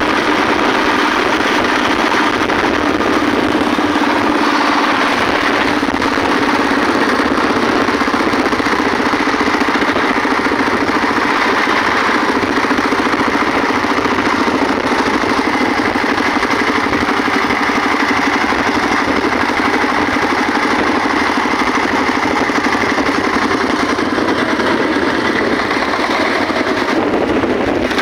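Single-cylinder diesel engine of a công nông farm truck running hard under way, a fast, even chugging heard up close beside the open engine.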